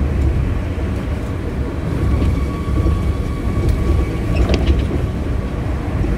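Osaka Monorail 1000 series train running on its rubber-tyred straddle-beam guideway: a steady low rumble. A steady high whine from the running gear joins about two seconds in and fades shortly before the end, with a few clicks about four and a half seconds in.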